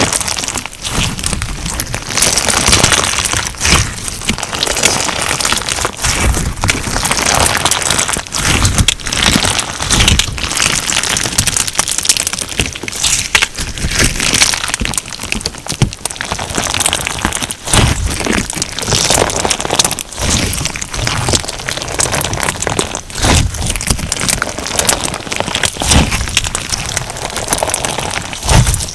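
Hands kneading and squeezing crunch slime filled with sugar beads, giving a dense, continuous crackling and popping.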